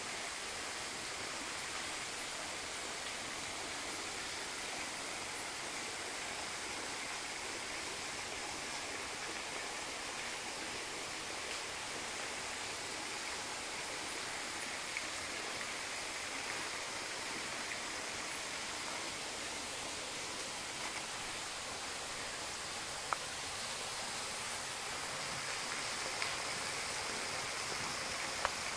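Steady rush of water from a mountain river or waterfall, with a couple of faint sharp clicks in the second half.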